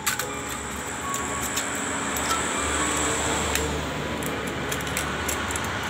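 Scissors cutting a thin aluminium drink can, giving a few scattered sharp clicks and crinkles over a steady low hum.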